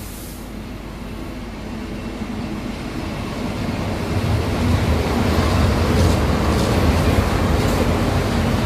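A V 90-family diesel-hydraulic locomotive approaching and passing close by, its low diesel engine drone growing steadily louder. It is followed by container wagons rolling past with wheel clatter and a few sharp clicks.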